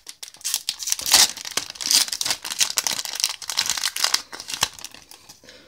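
Foil Yu-Gi-Oh booster-pack wrapper crinkling as it is torn open by hand and the cards are pulled out: a dense run of crackles that trails off near the end.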